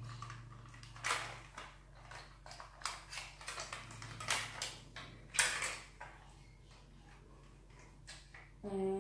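Hard plastic toy parts handled and clicked together: scattered clicks and short rattles as armor pieces are fitted onto an Armor-Up Baymax 2.0 action figure. They stop about two-thirds of the way through.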